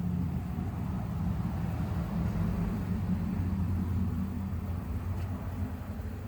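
Honeybees buzzing in flight around the hive during an orientation flight, a steady low hum.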